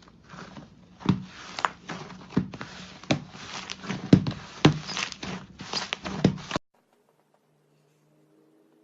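Slime being squished and worked by hand, with a run of sharp wet clicks and pops, cutting off suddenly after about six and a half seconds.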